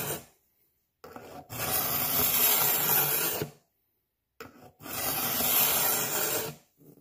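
Smith's axe and machete sharpener's carbide cutters rasping along a steel machete edge in long, even pull strokes, scraping off metal shavings: the end of one stroke, then two more of about two and a half seconds each, with short silent gaps between.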